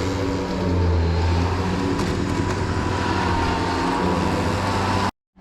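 A motor vehicle running, heard as a steady low engine hum with road noise. The sound cuts off abruptly just before the end.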